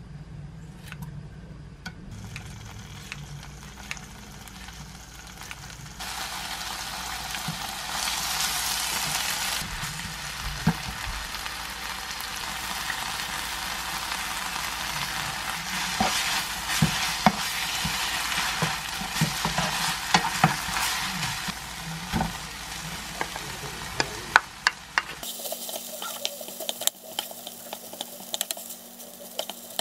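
Kimchi and then cooked rice sizzling as they are stir-fried in oil in a nonstick frying pan, with a spatula scraping and tapping against the pan. The sizzle is loudest through the middle and drops off abruptly near the end.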